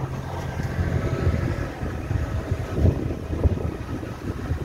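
Small open motorboat under way: its engine running steadily, with wind buffeting the microphone and water rushing along the hull. There are a few sharper gusts or bumps about three seconds in.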